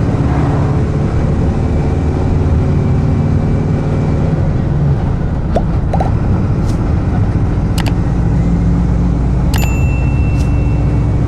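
Mercedes-Benz OF-1722M bus's front-mounted diesel engine running steadily, heard from inside the coach, with a few light cabin clicks. Near the end a sharp click is followed by a ringing ding that holds for about a second and a half.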